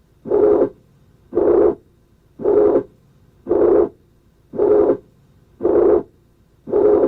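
Heart sounds of mitral regurgitation: a high-pitched, blowing pansystolic murmur that fills each systole right up to the second heart sound, repeating about once a second for seven beats.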